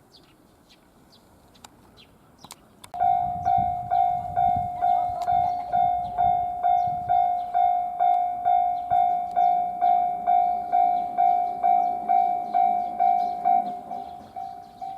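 A Japanese railway level-crossing warning bell starts suddenly about three seconds in and rings a steady electronic 'kan-kan' tone about twice a second. It drops in loudness near the end.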